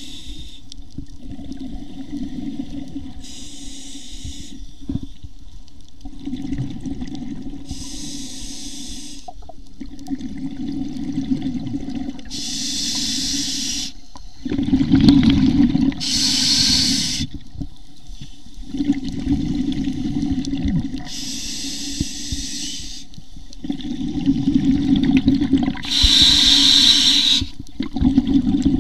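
Scuba diver breathing through a regulator underwater: a hiss on each inhale, then a longer low rumble of exhaled bubbles, the cycle repeating about every four to five seconds.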